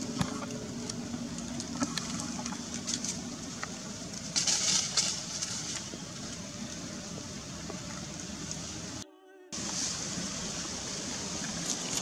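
Outdoor background noise: a steady low rumble and hiss, with scattered small clicks and a brief high hiss a little past four seconds in. The sound drops out for about half a second around nine seconds in.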